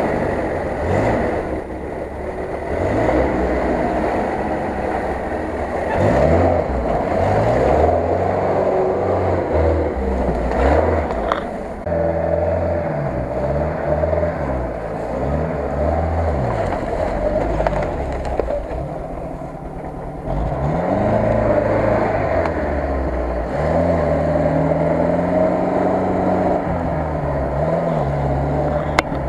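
UAZ off-road vehicle engines, a UAZ-452 and a UAZ-469, revving up and down as they crawl through mud and ruts, the engine pitch rising and falling again and again.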